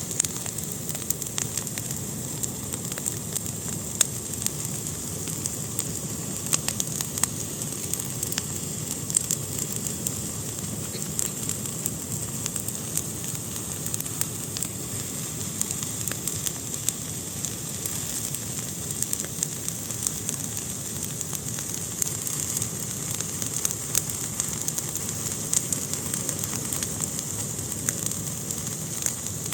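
Fire burning in a fireplace: a steady hiss and low rumble with frequent small crackles and pops.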